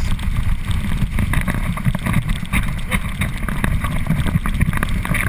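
Wind buffeting the microphone of a camera mounted on a towed inflatable tube, a heavy rumble, with water splashing and crackling against the tube as it skims across the water.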